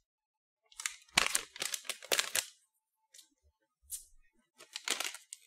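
Crinkling and rustling of a plastic Hi-Chew candy pouch being handled, in two spells: a longer one about a second in and a short one near the end.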